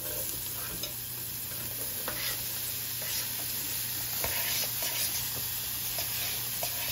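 Chopped onions sizzling steadily as they land in hot pork fat and browned drippings in a roaster pot, with a few light clicks of a fork scraping them off a plastic cutting board.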